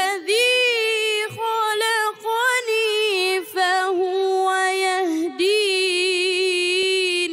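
A boy reciting the Quran in melodic style, one voice drawing syllables out into long, high, ornamented held notes with a few brief breaks. Near the end the voice stops and its reverberation fades away.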